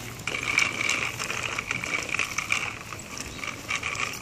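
A child's small bicycle with training wheels rolling along an asphalt path: a continuous rattle of the wheels on the pavement, with many small irregular clicks.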